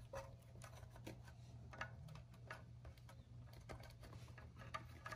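Faint, irregular light clicks and taps as a rubber gasket is pressed by hand into the groove of a Mazda Miata valve cover, over a low steady hum.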